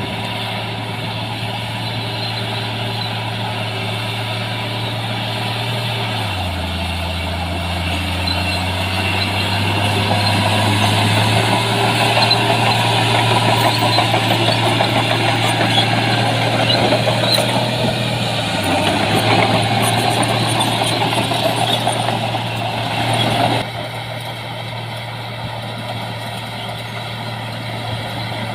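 Heavy diesel engine of construction machinery running under load, its pitch dipping briefly about six seconds in. The sound grows louder and noisier through the middle and drops back suddenly about five seconds before the end.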